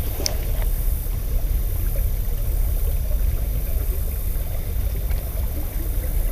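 Steady low rumble of moving river water, with one sharp click about a quarter second in.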